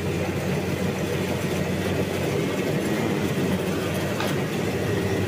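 Combine harvester engine running steadily with the threshing drum turning, a constant low drone. A faint click about four seconds in.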